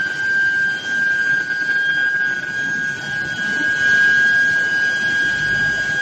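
Steel billet induction heating line running: a steady whine from the induction coils, one unbroken tone with fainter overtones, over general factory and roller-line noise.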